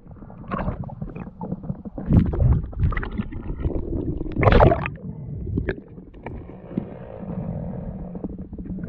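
Water sloshing and gurgling around a diver's camera at the surface, with a few loud splashy bursts, the loudest about halfway through, then a steadier low underwater rumble near the end.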